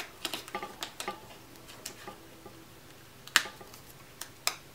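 Paper and cardstock handled by hand: light scattered ticks and rustles as a paper cut-out held by adhesive dots is peeled up and pressed down on a card, with two sharper clicks, the louder about three and a half seconds in.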